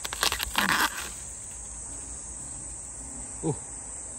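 Insects chirring steadily in a high band, with a burst of rustling and snapping clicks in the first second, as of a plant being handled and picked, and a short falling sound about three and a half seconds in.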